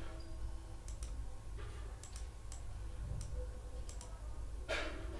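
Computer mouse clicking a handful of times at uneven intervals, over a steady low electrical hum. A short swish of noise comes near the end.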